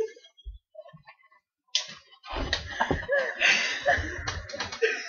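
Two people laughing hard. The laughter breaks out about two seconds in after a near-quiet start and goes on as breathy, wavering giggling.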